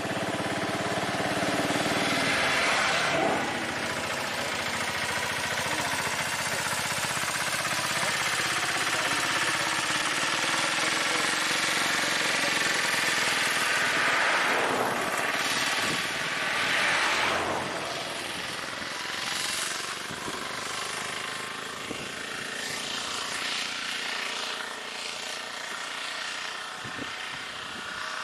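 Engines of an auto-rickshaw and a small car running close by, a steady rattling drone. The noise swells several times as the vehicles move past and eases off in the later part.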